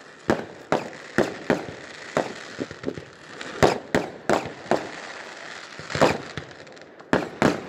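Distant aerial fireworks going off: a dozen or more sharp bangs at irregular intervals, some in quick pairs, over a steady background hiss.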